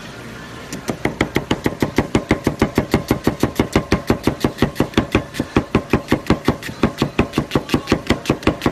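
Chef's knife rapidly slicing an onion, the blade knocking on a wooden cutting board in a fast, even rhythm of about six strokes a second, starting about a second in.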